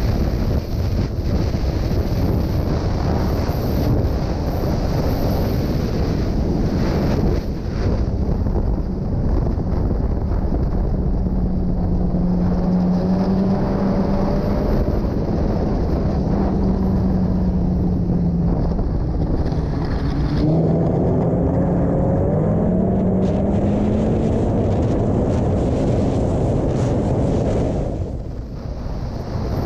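Snowmobile engine running hard at speed with wind buffeting the microphone. Through the middle its pitch holds steady, then it climbs in several rising sweeps as the sled accelerates again.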